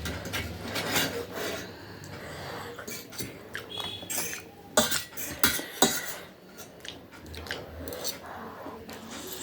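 Eating utensils clinking and scraping against a dish during a meal, with a run of sharp clicks, the loudest three coming between about five and six seconds in.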